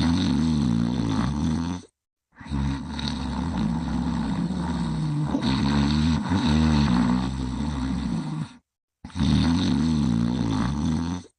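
A sleeping character snoring in long, rumbling, growly snores, in three stretches split by two brief dead-silent gaps where clips are joined.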